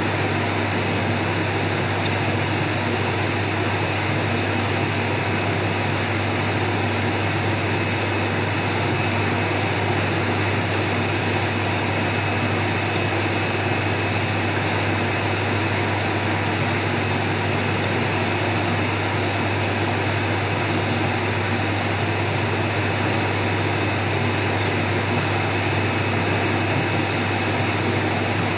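Steady machine hum and rushing noise, unchanging throughout, with a low hum and a thin constant high-pitched whine.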